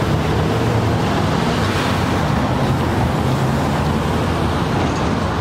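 Steady street traffic noise: a continuous rush of vehicles on a busy city road, with a low hum underneath.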